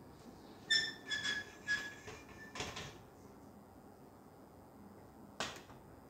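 Metal telescope mount parts and adjustment rod being handled: a few quick clinks with a short metallic ring about a second in, a brief rustle, then a single knock near the end.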